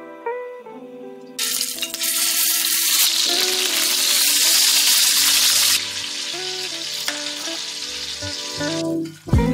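Chicken thighs searing in hot olive oil in a stainless steel pan: a loud sizzle that starts about a second and a half in and eases off after about six seconds.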